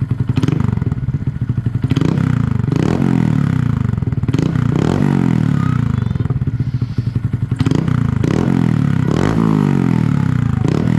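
2022 Honda Grom's single-cylinder engine through an aftermarket exhaust with its baffle removed, riding under way. The engine note repeatedly climbs in pitch and drops back as the throttle is worked and the gears change.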